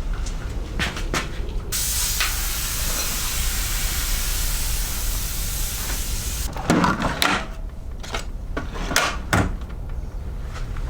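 A steady, loud hiss lasting about five seconds, followed by a run of sharp clicks and knocks, during work on a tubeless mountain-bike wheel.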